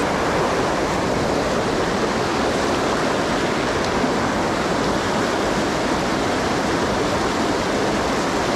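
Mountain stream water rushing steadily over rocks, an even unbroken rush.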